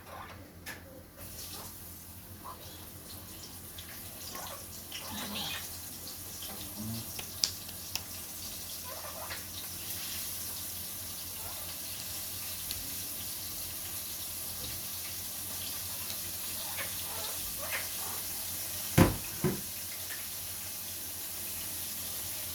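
Chicken pieces frying in hot oil in a pot: a steady sizzle that starts about a second in. A few knocks stand out, the loudest near the end.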